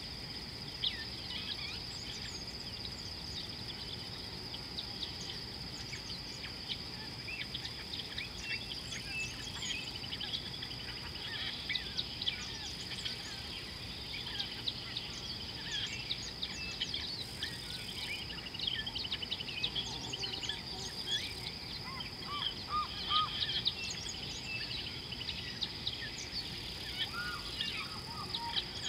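Bush ambience: a steady high-pitched insect drone with many small birds chirping and twittering over it, the birdsong growing busier in the second half, above a low background hiss.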